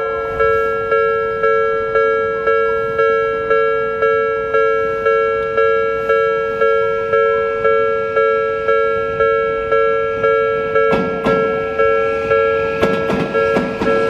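Japanese level-crossing warning bell ringing, an electronic two-tone ding repeating about twice a second. About eleven seconds in, an Odakyu commuter train runs onto the crossing and its wheels rumble and clatter under the bell.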